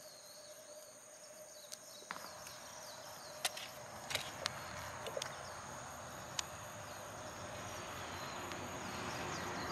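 Tissue-paper tinder catching and burning: a soft rush of flame that grows steadily louder, with a few sharp crackles. Insects chirr steadily in the background.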